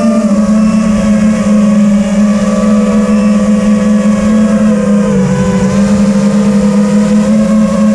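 Brushless motors of a TBS Vendetta FPV racing quadcopter whining steadily in flight, the pitch dipping briefly a little after five seconds in as the throttle eases.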